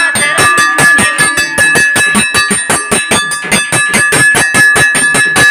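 A bell rung rapidly and continuously, about seven strikes a second, its ringing tones held throughout.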